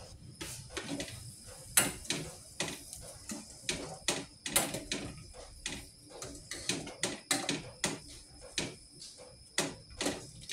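Cookware and kitchen utensils clinking and clattering, many sharp irregular knocks and clicks at about two or three a second.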